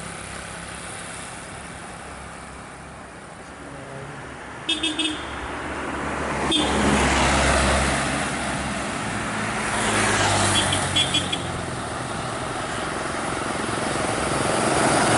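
Road traffic passing, with vehicles swelling in and out as they go by. Short horn toots in quick groups of three, one about five seconds in and another near eleven seconds.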